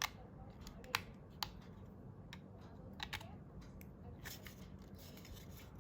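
Small sharp clicks and taps from handling a clip-on LED selfie ring light and its charging cable: single clicks at the start and about one and one and a half seconds in, a close pair about three seconds in, then lighter handling noise.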